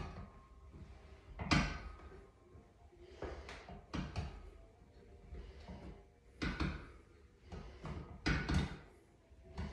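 Irregular knocks and clunks from a seated calf-raise machine as reps are worked, about one every one to two seconds, some with a short metallic ring.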